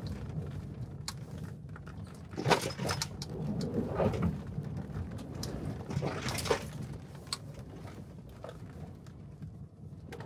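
Cabin noise of the F-150 Lightning Switchgear electric truck driven hard off-road on a muddy dirt track: a steady low rumble from the tyres and suspension, with scattered clicks and knocks and a few louder surges over rough ground, and no engine sound.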